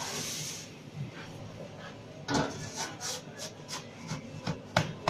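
Clacks and knocks of work at a pizza oven, with a pizza peel being handled at the counter. A short hiss comes at the very start, then from about halfway a run of sharp knocks, a few a second, the loudest near the end.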